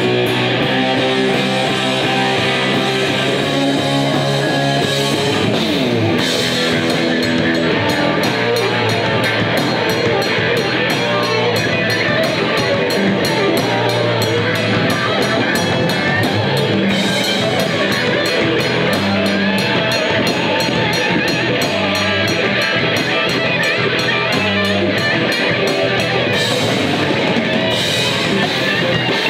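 Live rock band playing: electric guitars through a Marshall amp, bass guitar and a Tama drum kit. Held guitar chords ring for the first few seconds, then the drums and cymbals come in hard and keep a busy, steady beat.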